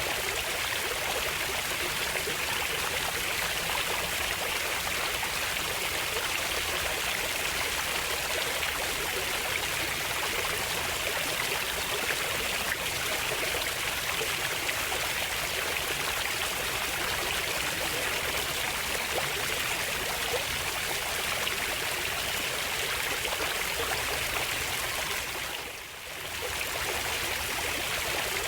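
Steady rushing and babbling of flowing water in a stream, briefly dipping in level near the end.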